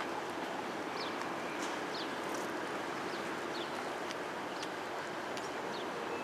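Small birds chirping, short falling chirps repeated every half second or so, over a steady rushing background noise.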